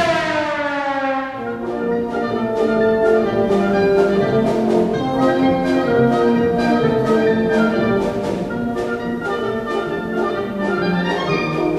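Concert wind band playing live. A loud chord slides downward in pitch over the first second, then brass and woodwinds carry on with held notes over a steady pulse of short accented notes, about three a second, with a rising line near the end.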